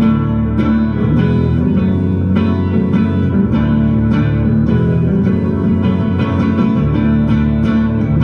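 Guitar music: an instrumental passage of plucked guitar notes and chords, with no singing, at an even level throughout.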